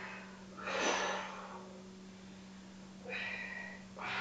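A woman's forceful exhale during exertion, a noisy whoosh about a second in, followed by two shorter breaths near the end, as she works through Pilates leg lifts.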